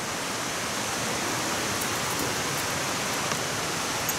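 Fast-flowing creek rushing steadily, an even hiss of water that grows slightly louder.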